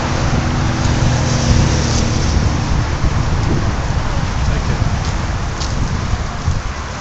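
Wind buffeting the microphone: a loud, uneven low rumble with a hiss above it.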